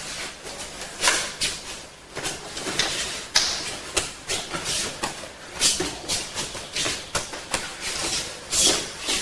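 Irregular short swishes, slaps and shuffles of people moving on the floor during a two-man karate kata: feet, uniforms and hands striking and blocking.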